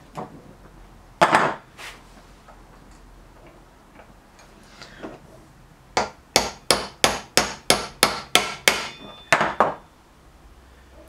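Hammer tapping a new bearing into a Look Keo 2 Max pedal. A few separate knocks come first, then a quick even run of about a dozen light strikes, roughly three a second, to drive the bearing home.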